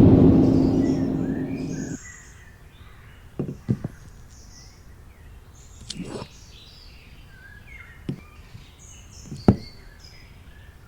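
Birds chirping over a steady outdoor ambience, with several short sharp knocks scattered through it. It opens with a loud, low, drawn-out sound that ends about two seconds in.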